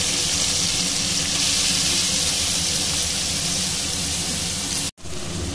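Chopped onions sizzling steadily in hot oil in an iron kadai, a constant hiss, over the steady hum of a kitchen chimney (range hood) fan. The sound cuts out abruptly for an instant near the end.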